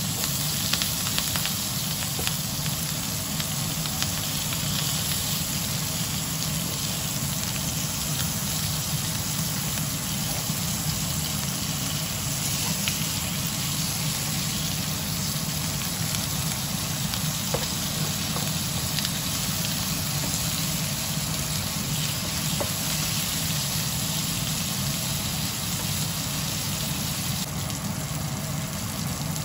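Pork belly pieces with garlic and onion frying in oil in a pan: a steady sizzle, with a few light clicks of a spatula moving the meat. A low steady hum runs underneath.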